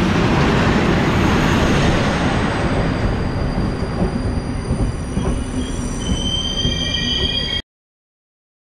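A diesel-hauled passenger train, an SU42 diesel-electric locomotive and Intercity coaches, passing close along a station platform with a loud rumble of engine and wheels. About two-thirds of the way through, high squealing tones from the wheels and brakes come in as the train slows, and the sound cuts off suddenly near the end.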